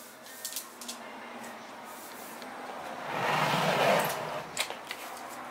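Dry rush stems rustling as they are handled and drawn out, the rustle swelling for about a second near the middle, with a few light clicks.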